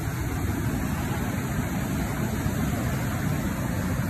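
River water rushing and churning through rapids: a steady, even rush of noise, heaviest in the low end.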